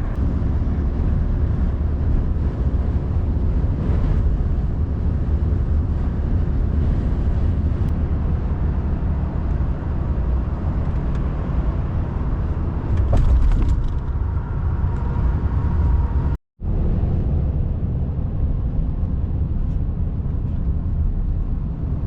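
Truck driving on the road while towing a trailer: a steady low rumble of engine and road noise. The sound drops out completely for a moment about three-quarters of the way through.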